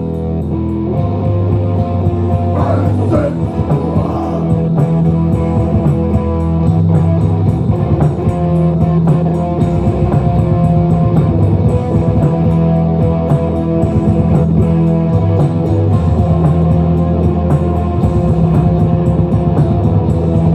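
Live rock band playing loudly: guitars hold low sustained notes over drums.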